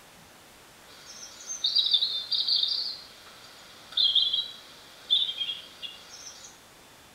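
High chirping of nesting birds, played by an iPhone nesting-box alarm clock app, in bursts: a run of chirps from about a second in lasting two seconds, then shorter bursts about four and five seconds in, and a faint one near the end, over a steady faint hiss.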